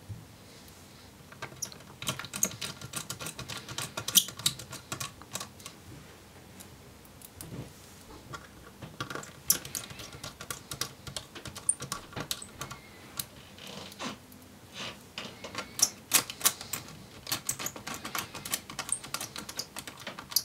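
Small Phillips screwdriver driving tiny screws into a laptop's 2.5-inch drive bracket: irregular quick metallic clicks and ticks of the driver tip and screws, starting about a second and a half in.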